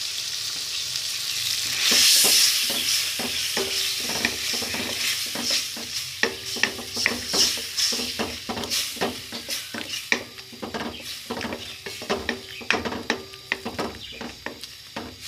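Eggs sizzling in a large metal wok, the sizzle loudest about two seconds in, while a metal spatula scrapes and knocks against the pan over and over as they are stirred and scrambled.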